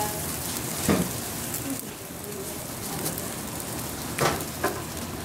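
Steady sizzling hiss from a steak on the hot grates of a gas grill. A sharp metallic clank about a second in as the steak is lifted with a metal spatula, and two more knocks a little past four seconds.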